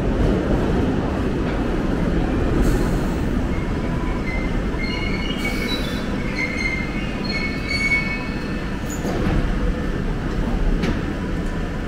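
London Underground Piccadilly line 1973 Stock train pulling into the platform. It rumbles in, then squeals in several high tones as it brakes to a stop about midway, and the doors open a few seconds later.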